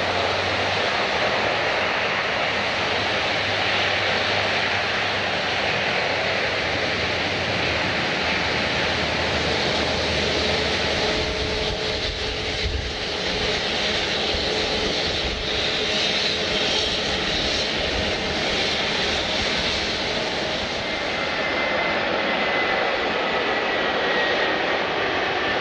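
Airliner engines running with a steady, loud noise and faint whining tones, and a thin high whine that slowly falls in pitch near the end.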